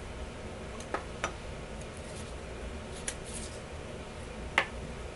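A few light clicks and taps of small metal parts and tools handled on a wooden workbench, the sharpest about four and a half seconds in, over a steady hiss.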